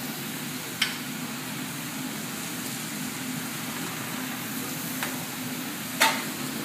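Food sizzling on a hot teppanyaki griddle, with sharp clicks of a metal spatula striking the steel about a second in and twice near the end, the last the loudest.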